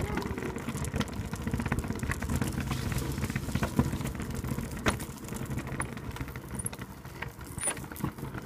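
Razor RipRider ride-on trike rolling over tarmac: a steady low rumble from the wheels, with frequent rattles and clicks.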